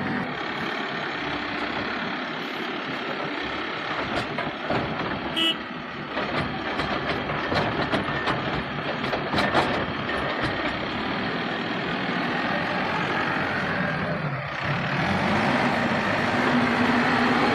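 Backhoe loader's diesel engine running hard while loading, with metallic clanks and knocks through the middle. Near the end the engine note dips briefly, then climbs and holds higher.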